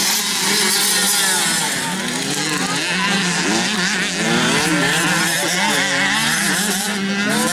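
Several motocross bikes' engines revving up and down at once as they race round a dirt track, their pitch rising and falling constantly.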